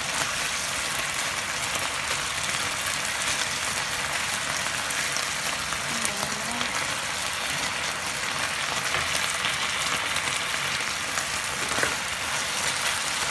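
Marinated beef slices and minced garlic sizzling steadily in oil in a nonstick frying pan, a constant hiss with fine crackles throughout.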